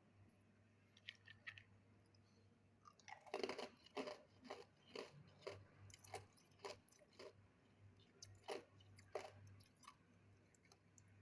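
A person crunching and chewing ice, a few faint clicks first, then sharp crunches about two a second that die away near the end.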